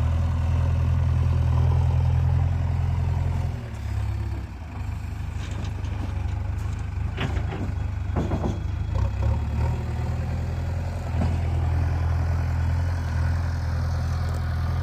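Heavy diesel engine of a tractor or backhoe loader running at a steady low speed. It drops away for a few seconds near the middle and then comes back up. A few short knocks sound while it is lower.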